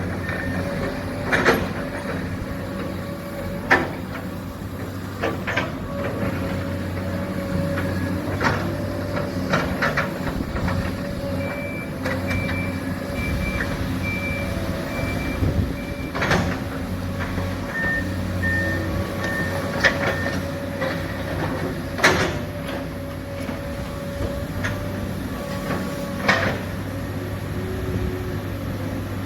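Heavy machinery engines running steadily at an excavator and truck loading site, with vehicle reversing alarms beeping in spells and sharp clanks and knocks every few seconds.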